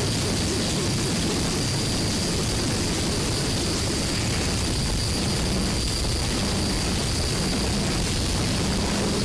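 Loud, unbroken harsh noise filling everything from deep rumble to high hiss, with a faint thin whine held steady on top; it does not change.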